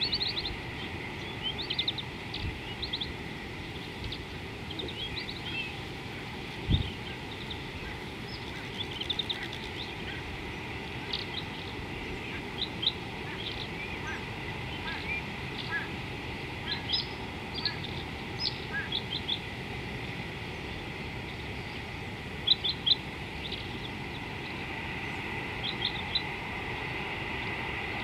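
Wild birds chirping, short high calls scattered throughout, over steady outdoor background noise with a thin constant high tone. A single low thump about seven seconds in.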